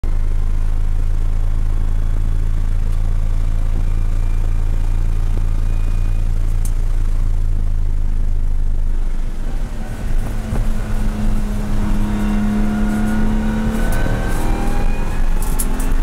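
BMW M235iR race car's turbocharged straight-six, heard from inside the cockpit, running at a steady pitch at speed. About nine seconds in the note drops and breaks up as the car slows for a corner, then the engine pulls again, its pitch rising toward the end.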